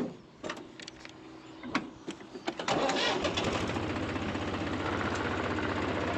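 A few clicks and knocks, then about two and a half seconds in a small tractor's inline four-cylinder engine starts and runs steadily with a fast, even beat.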